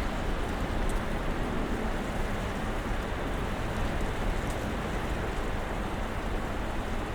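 Steady snowstorm ambience: an even, unbroken wash of noise, heaviest in the low rumble, with a couple of faint high ticks.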